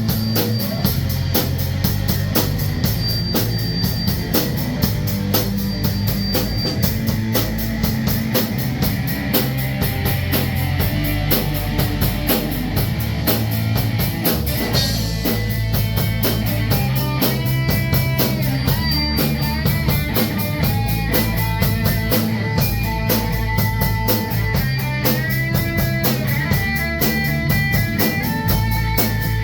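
Rock band playing: a drum kit beating fast and steadily under electric guitar and bass. About halfway in, a higher melody line comes in, with notes that bend in pitch.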